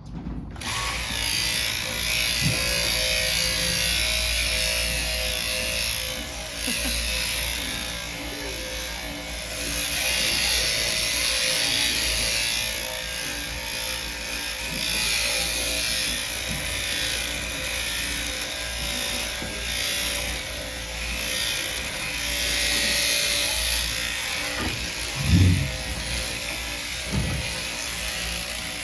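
Sheep-shearing handpiece starting up and then running steadily as it clips the wool from a lamb, with a single thump about 25 seconds in.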